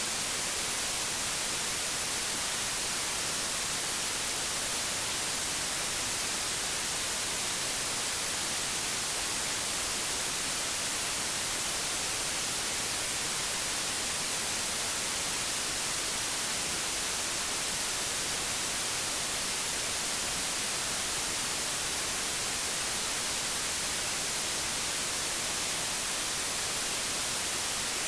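Analogue television static: a steady, even hiss weighted toward the treble, with no change in level.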